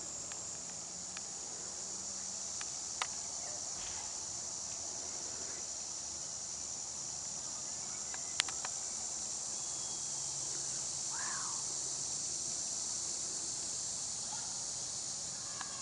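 Steady high-pitched chorus of insects, with two sharp clicks, about three and eight seconds in.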